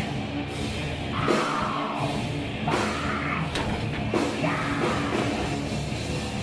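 Loud heavy rock band playing live, drum kit included.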